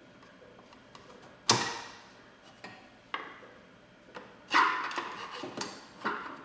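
Hand tools knocking and clattering as they are picked through and handled: a string of sharp knocks, the loudest about a second and a half in, with a longer clatter about four and a half seconds in.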